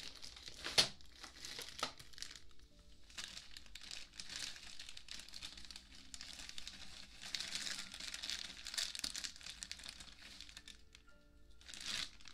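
A wooden ear pick with a feather tip scratching and rubbing on an ear-shaped binaural ASMR microphone, in soft rustling stretches, with a sharp tap about a second in.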